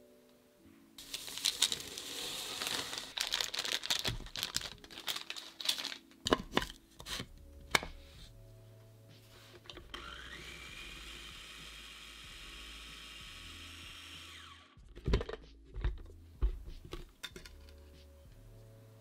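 Food processor blending flour, sugar and baking powder: the motor whines up to speed and runs steadily for about five seconds, then cuts off suddenly. Before it come a rushing sound and a string of plastic clicks and knocks as the bowl and lid are handled, and a few knocks follow after it stops.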